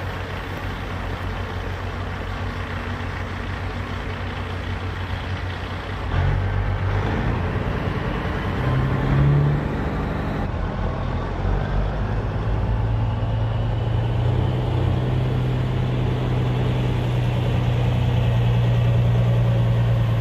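Semi truck's diesel engine running steadily. It grows louder about six seconds in, and from about twelve seconds on it holds a stronger, even note.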